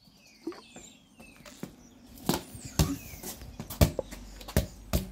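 A football being kicked and bounced on a paved patio: a series of sharp, separate thuds, about five, in the second half.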